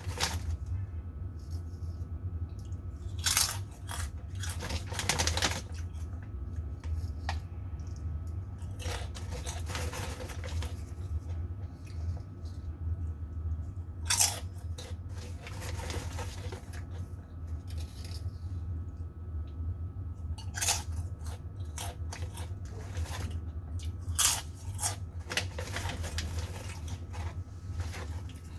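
Crunching and chewing of a crispy potato snack, with scattered sharp crunches or crinkles standing out from the steady eating. A continuous low hum runs underneath.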